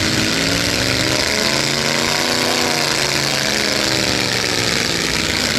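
Demolition derby truck engines running hard, one engine revving up and easing back down about halfway through.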